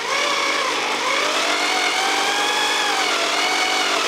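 Electric drill running under load, turning a long screw-tipped auger bit through a Douglas fir beam. The motor's whine sags and rises in pitch as the bit bites and pulls itself in, going in smoothly.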